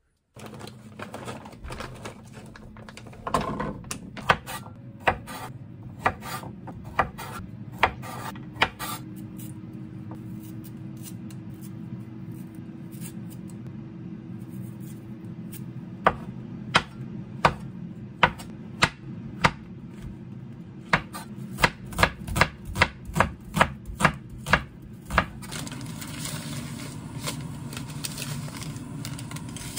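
Knife chopping garlic cloves on a wooden cutting board: three runs of sharp knocks, the last run faster, over a steady low hum. A softer steady hiss takes over near the end.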